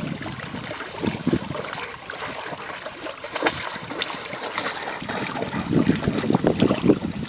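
A Rottweiler splashing about in shallow water, pawing and wading, with irregular splashes that grow louder and busier near the end.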